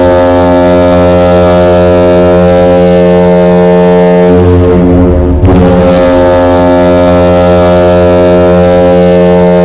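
The Mighty Ducks of Anaheim's 1996–97 arena goal horn sounding in two long, loud blasts, the second starting about halfway through. It is the signal that the home team has scored.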